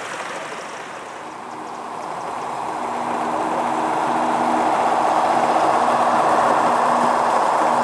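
Gauge One model Class 52 'Western' diesel locomotive running along the track with its coaches, a steady mechanical whirr with a low hum that grows louder as the train approaches.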